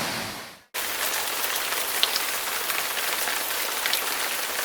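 The sound fades out to a moment of silence, then cuts straight into a steady hiss of falling water with faint scattered drop-like ticks.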